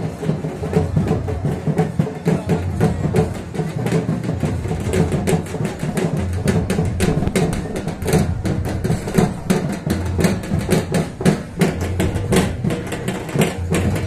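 Loud music with a fast, dense drum beat.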